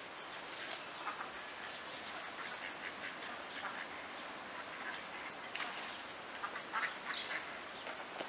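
Ducks quacking now and then, short scattered calls over a steady faint hiss.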